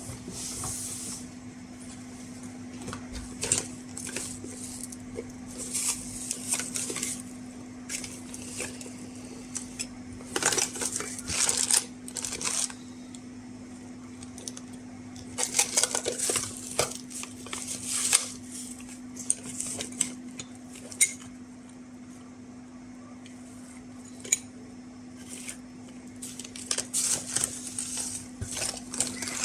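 Tweezers and small metal tools clinking and scraping on a workbench in scattered bursts while wires are handled for soldering, over a steady low hum.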